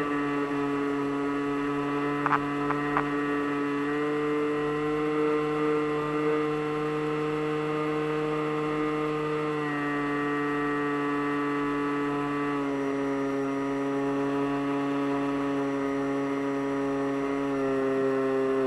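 Steady motor-and-propeller drone of a radio-controlled model aircraft, its pitch shifting in small steps several times as the throttle changes. A few short clicks about two seconds in.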